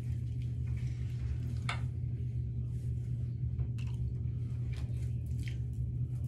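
Steady low hum of a bathroom ventilation fan, with a few faint short rustles as hands move through the hair.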